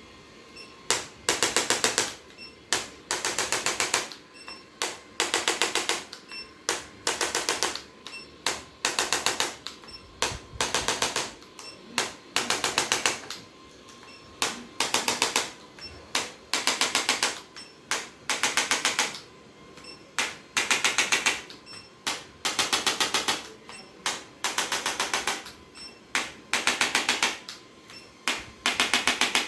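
Short bursts of very fast mechanical clicking or tapping, each lasting about half a second to a second and repeating roughly once a second.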